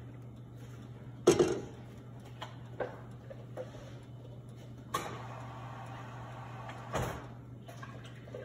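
A steady low hum with one sharp, loud knock about a second in, then a few softer clicks and two more sharp knocks, the first followed by a couple of seconds of hiss.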